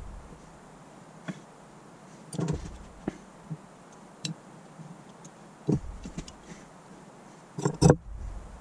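Small metal clicks and knocks of needle-nose pliers and a pick tool working on an electric fuel pump's brush plate and contacts, with a few dull thumps of parts and tools against the bench; the loudest, a quick double knock, comes near the end.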